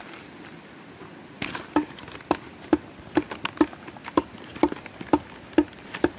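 Footsteps walking at an even pace, about two steps a second, starting about a second and a half in.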